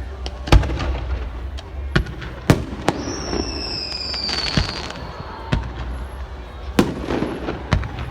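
Fireworks display: sharp bangs go off every second or so. About three seconds in, a whistle falls in pitch and ends in a burst of crackling.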